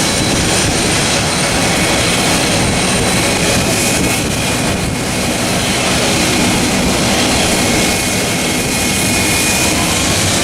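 Jet engines of a Boeing 767 freighter running loud and steady, a rushing roar with high turbine whine tones over it; one whine rises slowly in pitch near the end.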